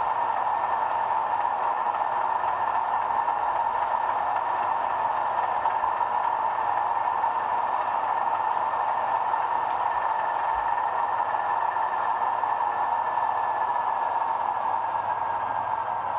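Sound-fitted model Class 37 diesel locomotive idling while standing still: the recorded drone of the engine plays steadily through the model's small speaker, with a thin whistle that sinks slightly in pitch near the end.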